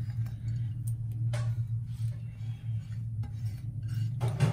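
A few light clicks and clinks of a glass bowl and soap moulds being handled on a table, one a little over a second in and a couple near the end, over a steady low hum.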